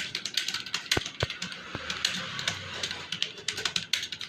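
Computer keyboard being typed on in quick, irregular key clicks, as in typing-test practice. Two heavier thumps come about a second in.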